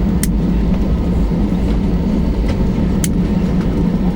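Steady cabin rumble of an Airbus A320-214 on the ground after landing, its CFM56 engines running at idle, with a faint steady whine over it. Two sharp clicks, one near the start and one about three seconds in.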